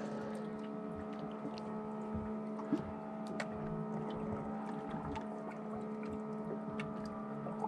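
Steady hum of a motor aboard a fishing boat, holding one even pitch throughout, with a few faint ticks and clicks over it.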